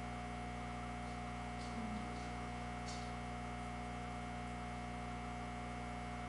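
Steady electrical mains hum: a constant drone made of several fixed tones, with nothing else standing out.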